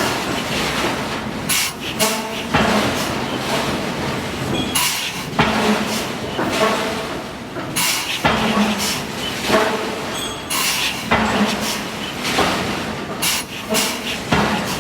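Forge-shop noise: a hydraulic forging hammer striking steel repeatedly, with sharp, irregular blows every second or two over steady machinery noise.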